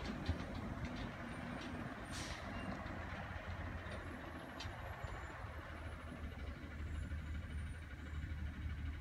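Front-loading garbage truck's diesel engine running steadily as the truck rolls slowly up the street, with a short air-brake hiss about two seconds in and a fainter one a couple of seconds later.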